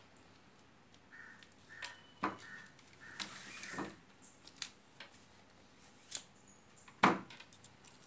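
Handling noise from white insulating tape being wrapped around a toroidal transformer winding: the tape rustling as it is pulled, with light clicks and ticks from the lead wires, and one sharp click about seven seconds in.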